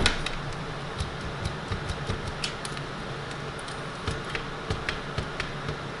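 IBM 029 keypunch keyboard assembly being handled and worked on at a workbench: a sharp knock right at the start, then scattered light clicks and taps over a steady low hum.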